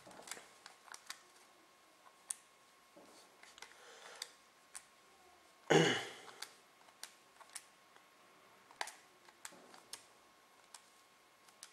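Scattered soft clicks of calculator keys being pressed, irregular and a second or so apart, with one louder short noise about six seconds in.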